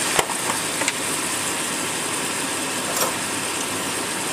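Turkey legs frying in a stainless steel pot: a steady sizzling hiss with a few small pops.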